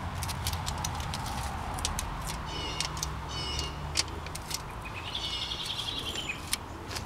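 Aluminum foil tape crinkling and ticking as it is handled and its backing is peeled, over a steady low hum. A small bird chirps in short runs, about halfway through and again later.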